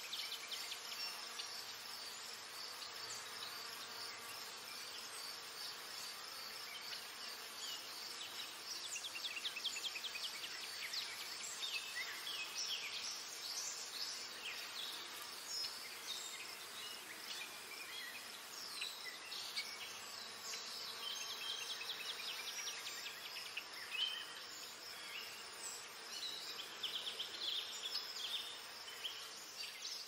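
Steady high-pitched insect buzzing, with runs of quick high chirps and twitters from small birds, busiest about a third of the way in and again near the end.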